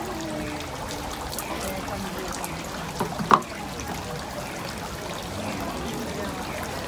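Steady wash of outdoor crowd noise with faint distant voices, and one brief sharp sound a little over three seconds in.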